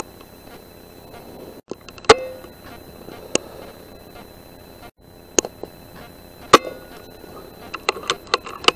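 Sharp clicks and knocks from an air-rifle and night-vision scope rig, two of them very loud, about two seconds in and about six and a half seconds in, with a quick run of smaller clicks near the end. A steady high thin whine runs underneath.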